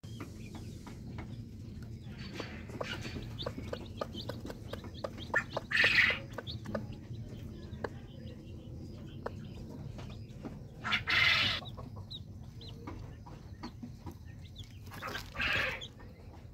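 Broody hen clucking to her newly hatched chicks, with the chicks peeping and many short ticks throughout. Three louder, brief noisy sounds come about six, eleven and fifteen seconds in.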